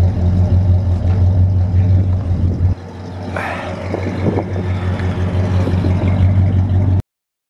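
Chevrolet Caprice's 305 (5.0 L) V8 idling steadily through its dual exhaust. About three seconds in it drops to a quieter level, and it cuts off suddenly near the end.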